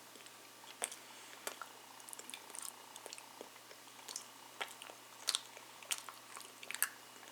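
A person chewing a mouthful of microwaved French bread pizza, with small irregular crunches from crisp bits of the crust.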